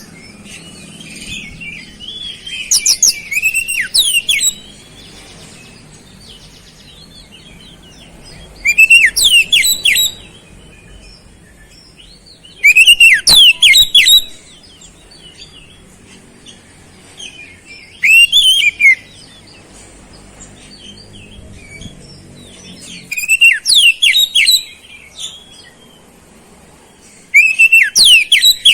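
Oriental magpie-robin (kacer) singing in short loud phrases of rapid high chirps and sweeping whistles, about six phrases with pauses of a few seconds between them. The song is laced with imitated flowerpecker (cabe-cabean) notes.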